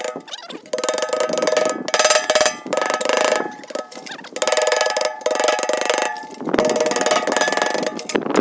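A steel pail can ringing under rapid, repeated metal-on-metal strikes from a tool working it. The strikes come in stretches of one to two seconds with short pauses between them.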